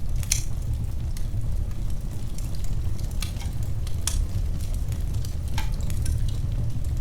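Wood fire in a fireplace crackling: a steady low rumble of flames with a few sharp pops scattered through it.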